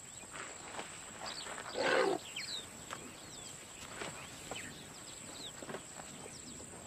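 Savanna ambience with a steady high insect whine and scattered short bird chirps; about two seconds in, a brief breathy blast from an elephant.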